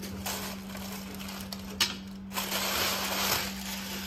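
Plastic wrapping crinkling and rustling as it is pulled off by hand, with one sharp click a little under two seconds in.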